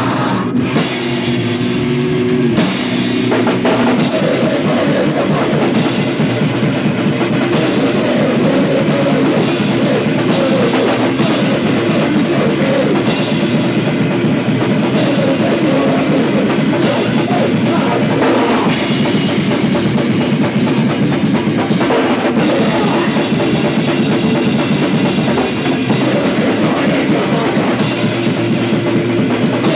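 Live thrash/punk band playing fast and loud: a distorted electric guitar opens alone, then the drum kit and the rest of the band crash in about two and a half seconds in and keep going.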